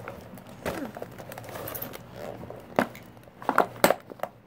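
Plastic toy packaging crinkling and crackling as it is worked open by hand, with a few sharp clicks and snaps, the loudest about three to four seconds in.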